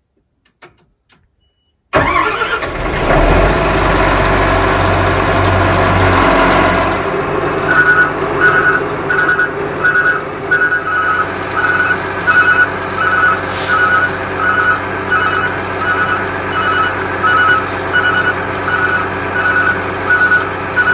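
A large engine comes in suddenly about two seconds in and runs loudly, heavy and low for the first few seconds, then settles to a steady run. From about eight seconds in, an electronic beeper sounds over it about one and a half times a second, like a reversing alarm.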